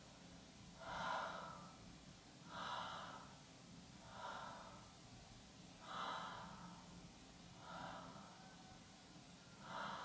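Faint, slow breaths, six in all about every one and a half to two seconds, each a short airy rush that swells and fades.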